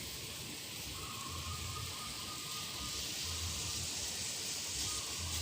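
A pot of water and spices boiling on the stove, giving a steady hiss, while a spoon stirs it.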